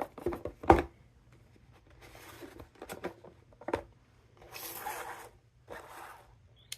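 A package being torn open by hand: short tearing rips and rustling of packaging, with a sharp click about three-quarters of a second in.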